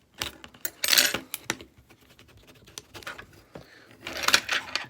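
Small loose phone parts, such as screws, shields and plastic pieces from a phone teardown, clattering and rattling as they are handled and pushed around. There are two bursts of jangling clatter, about a second in and again near the end, with scattered clicks between.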